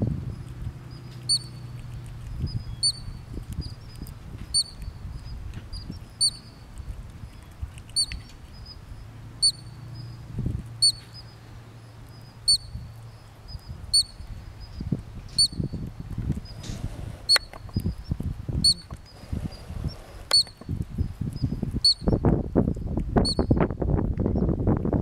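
Columbian ground squirrel alarm chirps: a short, high-pitched squeak repeated evenly about every second or two. These are warning calls to the colony that a bird of prey is near. Low crackling rises near the end.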